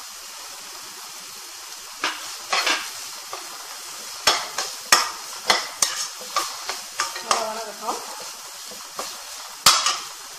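Perforated stainless-steel spoon stirring the green peas into a tomato-onion masala in a nonstick kadai over a steady frying sizzle. From about two seconds in the spoon knocks and scrapes against the pan again and again at an uneven pace, with the loudest knock near the end.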